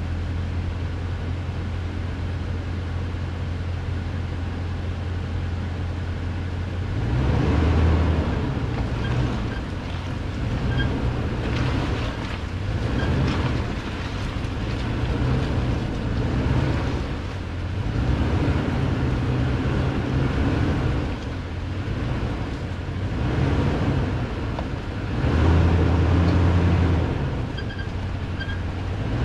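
2018 Toyota Tundra's V8 engine as the truck crawls a rocky trail. It holds a steady low drone, then from about seven seconds in rises and falls again and again with the throttle, over the crunch of tires on rock and dirt.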